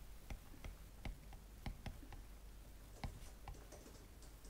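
Faint, irregular clicks and taps of a stylus writing by hand on a tablet, over a low room hiss.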